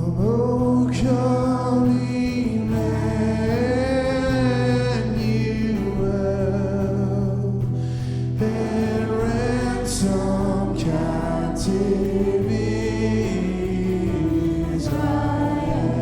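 A church worship band and singers performing a hymn, with sustained sung melody over steady instrumental accompaniment.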